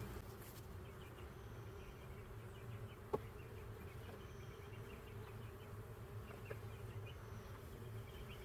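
Honey bees buzzing steadily around an opened hive, a faint even hum, with one small click about three seconds in.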